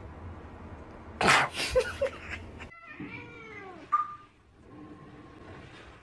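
Domestic cat meowing: a few arching meows about halfway through, after a loud, rough burst of noise about a second in.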